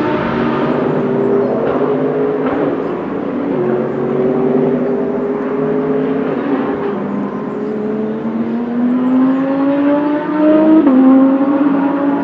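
GT3 race car engine accelerating hard through the gears out of sight. The pitch climbs steadily and drops sharply at each of several upshifts.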